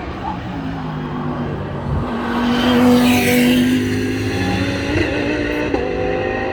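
GT3 race cars running at speed on track, several engine notes at once, with one car passing close about three seconds in.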